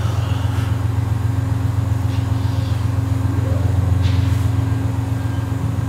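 A diesel-hauled passenger train standing at idle: a steady low drone with an even hum above it.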